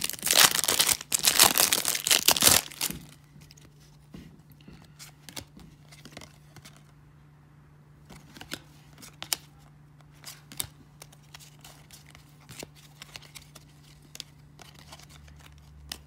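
A 1994 Topps baseball wax-pack wrapper crinkling and tearing open for the first two and a half seconds. After that come quieter scattered clicks and rustles as the stack of cards is handled and thumbed through.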